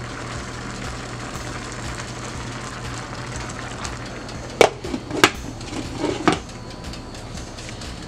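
Kitchen clatter: four sharp clanks close together about halfway through, over a steady low hum.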